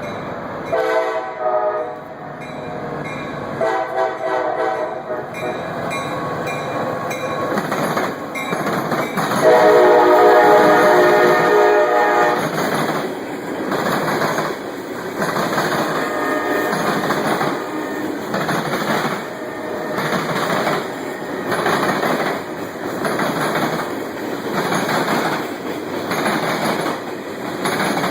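Freight locomotive air horn played in a run of blasts: two short ones near the start, then a long, louder blast about nine seconds in and a fainter one later. Under and after the horn, the freight cars roll by with a rhythmic clickety-clack of wheels over the rail joints.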